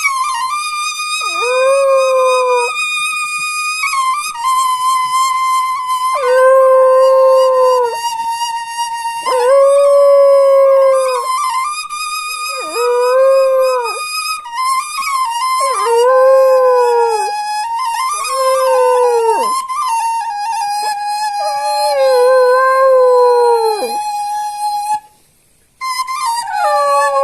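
Dog howling along with a Balinese suling bamboo flute playing a slow, sad melody. The flute holds long steady notes while the dog gives about nine howls, each a second or two long and sagging in pitch at the end. Both stop briefly near the end, then start again.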